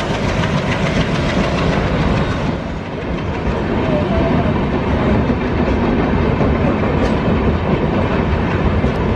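Empty LHB passenger coaches being shunted past on the track, their wheels running over the rails with a steady, loud rumble.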